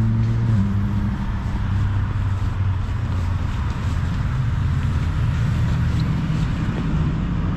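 Road traffic: steady engine noise from vehicles, with a low engine hum that shifts in pitch about half a second in.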